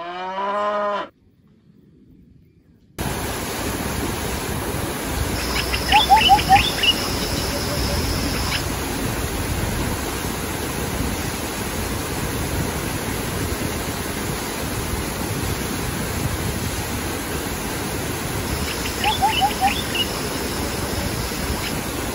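A cow moos once, briefly, then a small forest stream runs steadily as it cascades over rocks. A bird chirps twice over the water, about a third of the way in and again near the end.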